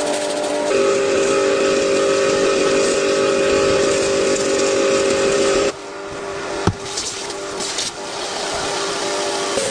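A machine running with a steady whine over a loud hiss. It cuts off suddenly about six seconds in, a single sharp click follows, and it starts again near the end.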